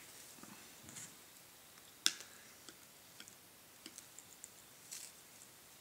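Small hand pruners snipping preserved shrub roots: one sharp snip about two seconds in, with a few fainter clicks and soft rustling as the root material is handled.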